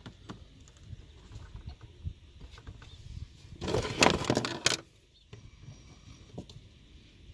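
A diesel heater's fuel line being worked off its fitting by hand: small clicks and scrapes, with a louder rough burst of noise about three and a half seconds in that lasts about a second.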